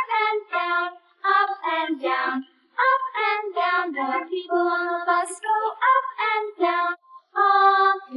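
A child-like voice singing a nursery-rhyme song in short phrases, with brief pauses between lines.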